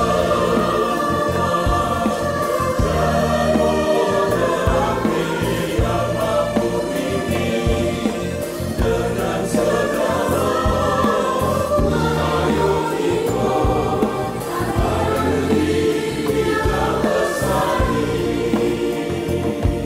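Mixed choir of men's and women's voices singing a song in parts, assembled as a virtual choir, with steady low bass notes beneath.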